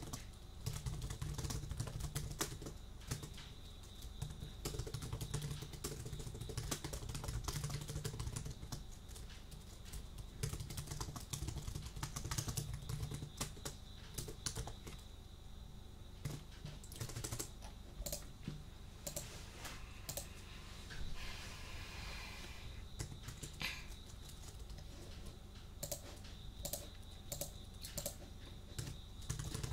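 Computer keyboard typing: a steady run of irregular key clicks, close to the microphone.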